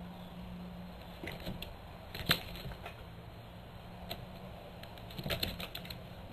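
Irregular light clicks and taps over a low steady hum: a few scattered ones, one sharp louder click about two seconds in, and a quick cluster of taps a little after five seconds.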